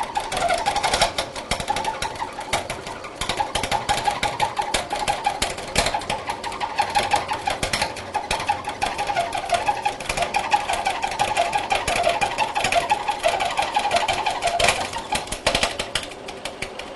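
End mill in a vertical milling machine cutting a brittle PVC block hard: a crunchy chatter of rapid crackles over a warbling tone, which stops near the end. The aggressive cut makes the PVC fracture and break out at the unsupported exit edge.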